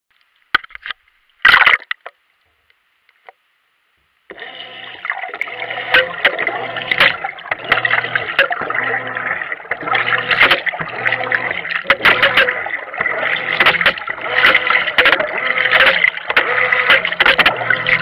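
Wash water churning and sloshing inside a Whirlpool top-load washer without an agitator, with repeated knocks as the swirling water lifts the camera and lets it fall back into the tub. A low hum pulses on and off about once a second. The churning starts about four seconds in, after near silence broken by a few clicks and one loud knock.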